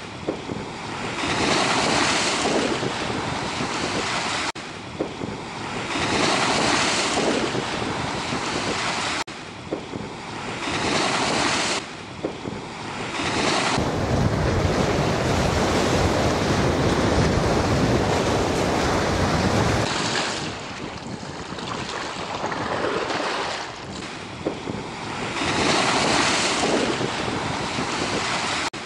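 Wind-driven waves breaking and washing against the concrete bank of a reservoir, surging every couple of seconds, with strong wind buffeting the microphone.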